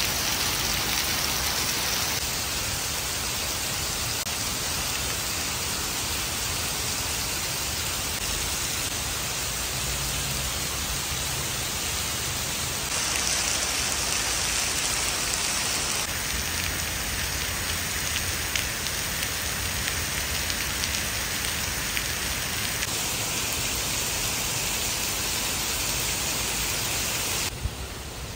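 Steady rain falling on paved tiles and trees, a continuous hiss that changes abruptly in level and tone a few times and turns quieter near the end.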